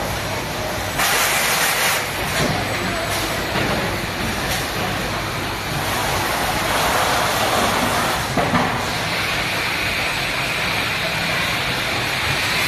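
Production-line machinery running with a steady hum and hiss. A burst of hissing lasts about a second, starting about a second in, and two sharp knocks come about eight seconds in.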